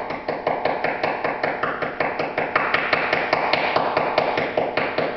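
Rapid, even metallic tapping, about six to seven taps a second, each ringing briefly: a hand tool tapping on the sheet-metal body of the car near the rear wheel arch, probing the rusted area for holes.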